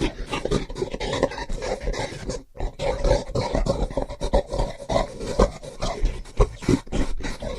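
Gorilla giving a rapid, irregular series of short grunts and huffs.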